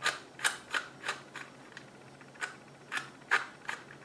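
Irregular sharp clicks and clacks as the metal shift rods of a 3D-printed plastic manual transmission model are slid back and forth, moving the shift forks against their gears.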